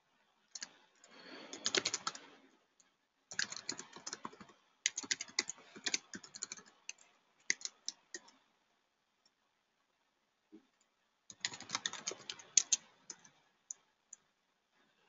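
Typing on a computer keyboard: quick runs of keystrokes in three bursts, with a pause of a few seconds before the last burst.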